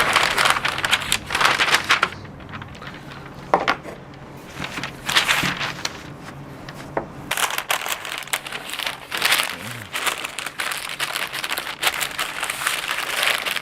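Butcher paper crinkling and rustling in irregular bursts as it is handled around the ribs.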